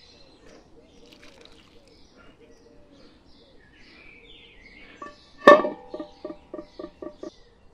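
A metal cooking pot set down on stones: one loud clank with a ringing tone about halfway through, then a quick run of about six lighter ringing clinks. Small birds chirp faintly throughout.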